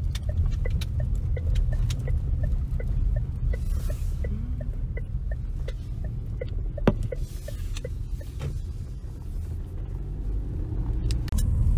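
Low, steady road rumble inside a moving car, with the turn-signal indicator ticking evenly about twice a second as the car turns around; the ticking stops about eight or nine seconds in. A single sharp knock sounds about seven seconds in.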